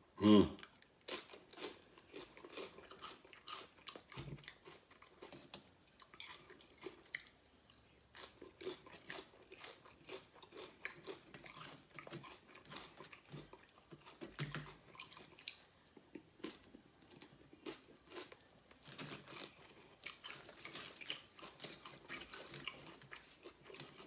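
Close-up crunching and chewing of crisp tortilla chips, a louder bite about half a second in, then irregular crunches as the mouthful is chewed.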